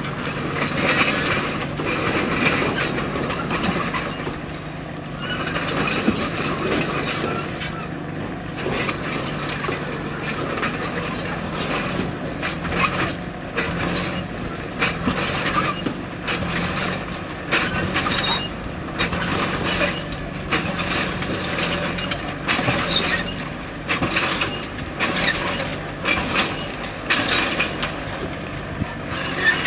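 Bulldozer's diesel engine running steadily under the clanking of its steel tracks and the scrape of rock being pushed, with frequent sharp knocks that come thicker in the second half.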